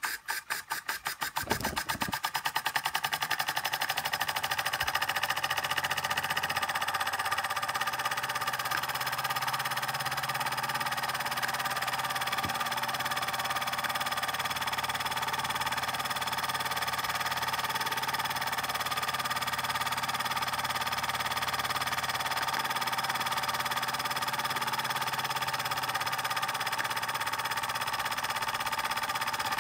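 Small toy oscillating steam engine getting up speed: its exhaust puffs come quicker and quicker over the first couple of seconds, then blend into a fast, steady chuffing hiss as it runs at speed.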